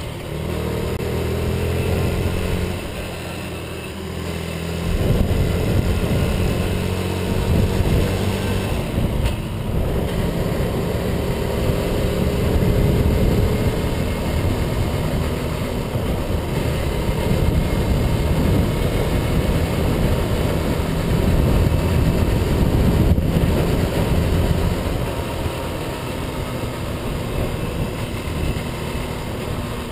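Honda Monkey 6V's small single-cylinder four-stroke engine running. Its loudness rises and falls as it is revved, growing louder about five seconds in.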